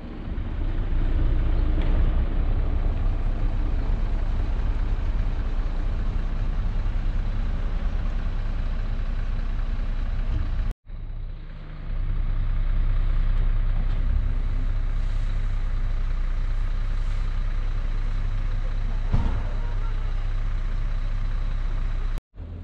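A vehicle engine running steadily with a low rumble. The sound breaks off abruptly about eleven seconds in and resumes.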